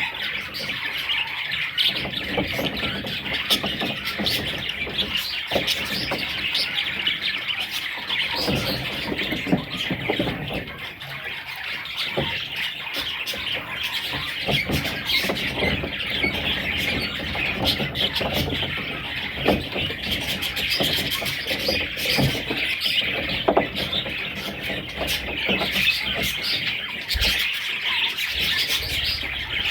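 A flock of budgerigars chattering without a break: a dense stream of high chirps, warbles and squawks.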